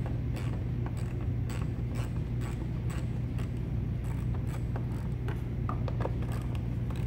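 Scattered, irregular small clicks and taps of a hand tool working the 8 mm screws on a plastic air filter box cover, over a steady low hum.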